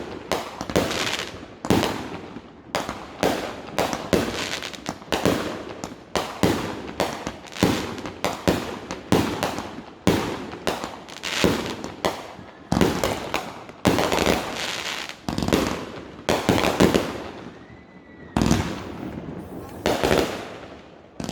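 Fireworks display: a rapid, unbroken run of aerial shell bursts, often more than one a second, each bang trailing off in a short echo.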